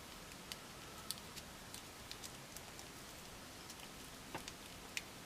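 Faint scattered clicks of a plastic action figure and its small blaster being handled, the pieces tapping and fitting together in the fingers, over a low steady hiss.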